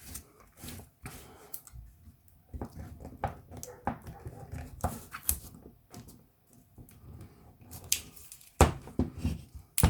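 Irregular clicks, taps and short scrapes of hands working a cell loose inside a lithium-ion power tool battery pack, with two sharper knocks near the end.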